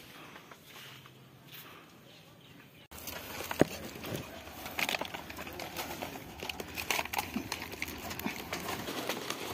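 Stiff, dry palmyra palm leaves and stalks rustling and crackling with sharp snaps and clicks as the climber moves among the fruit bunches at the crown; it starts abruptly about three seconds in after a quieter stretch.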